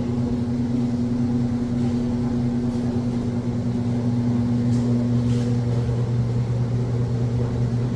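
Steady low electrical hum from a running machine, holding one even pitch.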